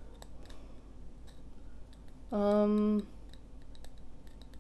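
Faint light clicks and taps of a small lid-like piece being turned over and fitted by hand, with a short hummed "hmm" at one steady pitch about two and a half seconds in.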